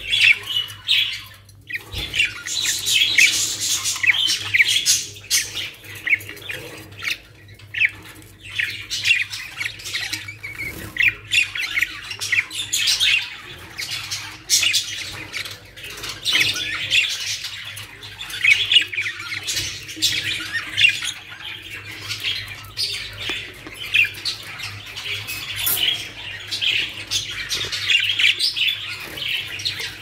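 Budgerigars chattering: a continuous stream of rapid, high-pitched squawks and chirps that rise and fall in loudness without pause.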